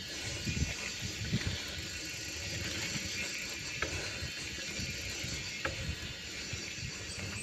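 Bergamont mountain bike ridden over a rough road: a steady rolling hiss with irregular low thumps, and two sharp clicks, about four and six seconds in.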